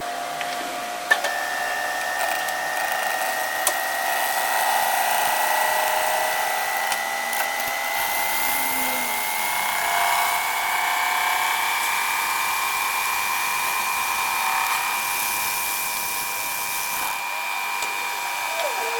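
Metal-cutting machine tool running with a steady high-pitched whine that rises slowly in pitch, with a sharp click about a second in.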